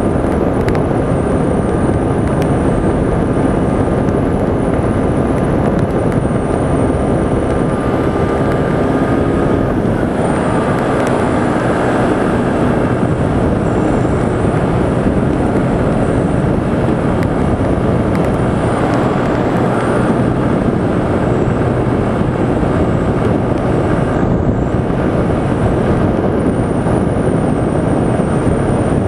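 Honda motorcycle's engine running steadily at highway cruising speed, about 110 km/h, under heavy wind rush on the microphone. The engine note shifts slightly about ten seconds in.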